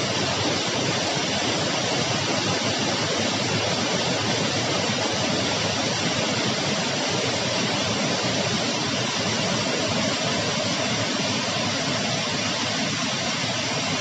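Waterfall rushing: an even, unbroken hiss of falling water.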